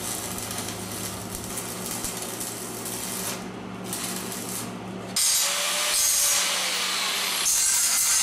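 Welding arc crackling steadily on steel conduit tubing, over a low electrical hum, for about five seconds. Then an angle grinder starts up and runs against the frame, louder and brighter, its motor note rising and then sagging.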